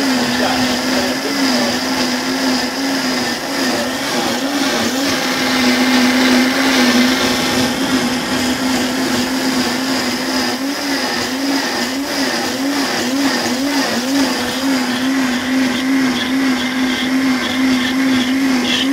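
Cuisinart Hurricane countertop blender running steadily, blending a thick peach purée, its motor hum wobbling slightly in pitch as the blades work through the mix.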